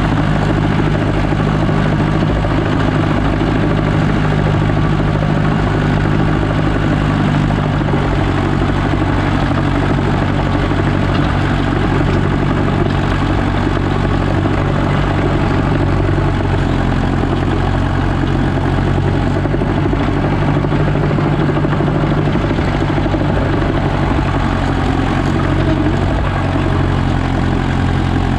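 Landini Trekker 85 crawler tractor's Perkins diesel engine running steadily while pulling a field roller, its pitch shifting slightly a couple of times.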